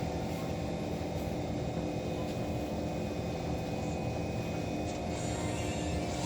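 Steady hum inside the carriage of an SMRT Kawasaki C151 train: a constant mechanical drone with a few steady tones and no sudden events.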